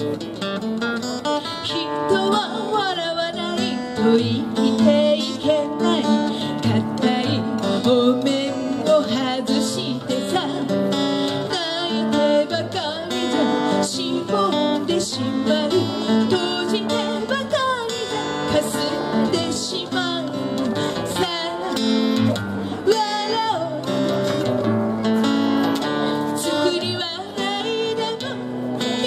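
Acoustic guitar strummed and picked under a woman singing a song.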